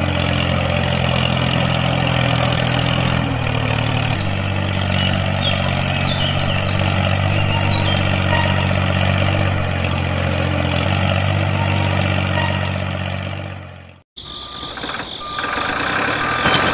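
Steady, low tractor-engine drone with even overtones, stepping slightly in pitch a few times. It cuts off abruptly about fourteen seconds in, and a different, quieter mix of sounds follows.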